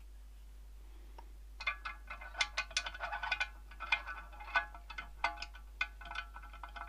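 Irregular light metallic tinkling: many quick chime-like strikes, each ringing briefly, starting about a second and a half in and going on steadily.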